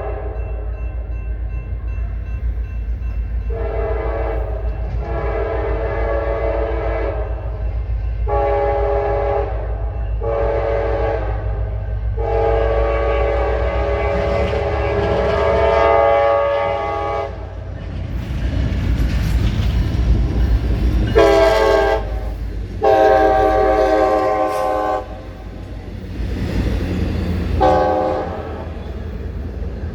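Locomotive multi-chime air horn sounding a long series of blasts, short and long, including one long held blast near the middle, over the steady low rumble of the train. Rail and wheel noise rises about two-thirds of the way through as the train passes.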